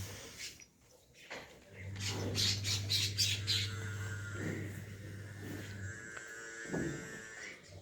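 Farmyard animal calls: a run of harsh bird squawks about two seconds in, then longer calls, over a steady low hum.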